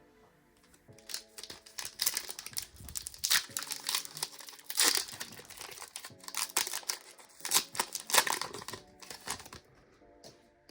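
Foil Pokémon TCG booster pack wrapper crinkling and being torn open, in a run of irregular crackling bursts that stop near the end.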